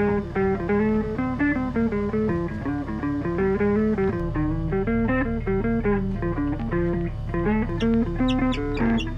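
Background music: a plucked guitar tune with a steady rhythm.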